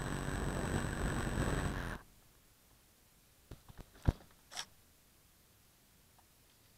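A steady engine-like hum with several even tones stops abruptly about two seconds in. Then near silence, broken by a few light clicks, a sharp knock just after four seconds and a short scrape, as the model plane carrying the camera is handled on the ridged plastic liner of a pickup bed.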